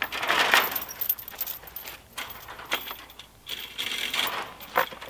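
Rustling and light clinks of a wooden gate being unfastened by hand, its rope tie worked loose and the gate handled, with scattered clicks and a burst of handling noise in the first second.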